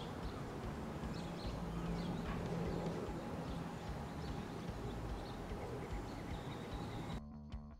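Outdoor ambience by a creek: a steady hiss with a low rumble and a few faint high chirps. Music with guitar comes in near the end.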